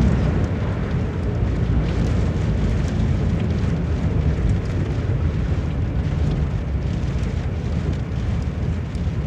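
Heavy rain falling in strong wind: a steady rushing hiss over a deep low rumble.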